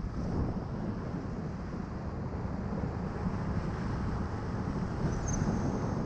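Wind rushing over the microphone of a paraglider in flight: a steady, low rumbling buffet. A faint high tone sounds briefly about five seconds in.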